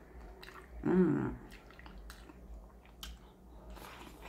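Person eating a baked chicken drumstick: a short hummed "mm" about a second in, then faint, scattered wet mouth clicks and chewing, with a bite into the drumstick near the end.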